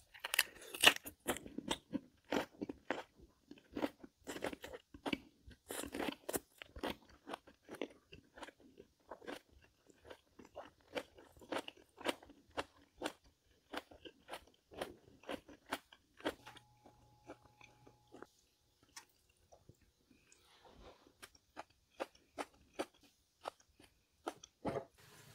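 Close-miked chewing of food with crisp crunching, strokes coming fast for the first two-thirds and then more slowly.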